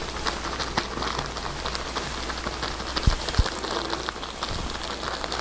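Close rustling and scuffling as a male dog mounts a female and is held in place, a dense crackle of fur and handling with two short low thumps a little after three seconds in.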